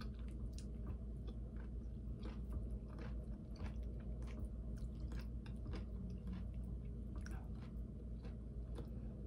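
Close-miked chewing with many small wet mouth clicks, over a steady low hum.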